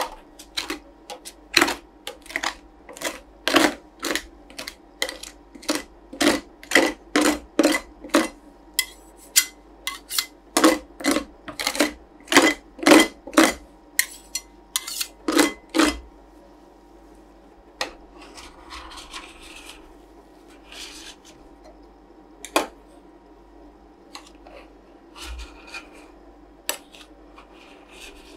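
Metal spatulas chopping and tapping ice cream mixture on the stainless-steel cold plate of a rolled-ice-cream machine: a run of sharp clacks about two a second, stopping about halfway through. After that, softer scraping as the frozen sheet is spread and pushed up into rolls, with a couple of single clacks.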